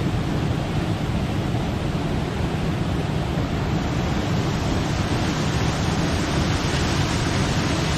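Waterfall rushing: a loud, steady noise of falling water, even throughout, with most of its weight low down.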